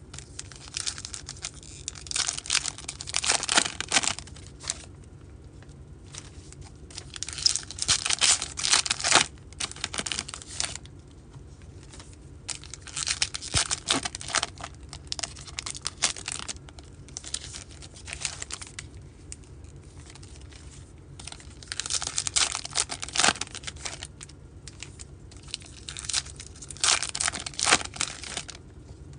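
Baseball card pack wrappers being torn open and crinkled by hand, in about five separate spells of tearing and crackling with short pauses between them.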